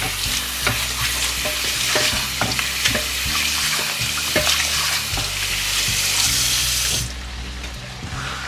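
Chicken pieces and onions sizzling in a frying pan, with occasional clicks and scrapes of stirring. The loud sizzle drops off suddenly about seven seconds in.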